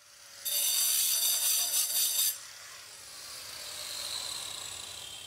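Handheld angle grinder with a diamond blade cutting slots into a granite countertop along the sink cutout. The slots are for the fasteners that hold an undermount sink. It gives a loud high whine for about two seconds, then runs on more quietly and fades.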